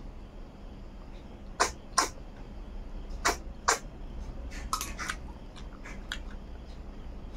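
Snails being sucked out of their shells by mouth: sharp, wet sucking slurps and lip smacks, mostly in pairs every second or so, with softer smacks near the end.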